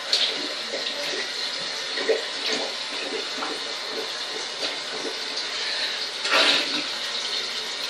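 Water sloshing and splashing in a clogged, overfull toilet bowl as it is worked with a plunger, in short repeated surges, with a louder splash about six and a half seconds in.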